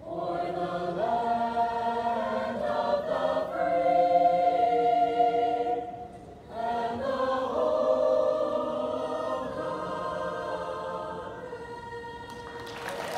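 A mixed high-school choir singing in several parts, holding long chords, with a short pause about six seconds in; the last chord fades away near the end.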